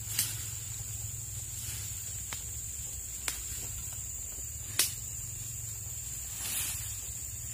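Steady high-pitched insect drone over a low hum, broken by a few sharp snaps, the loudest nearly five seconds in.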